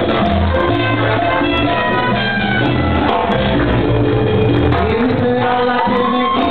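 Live orchestra playing a cha-cha with a steady Latin beat.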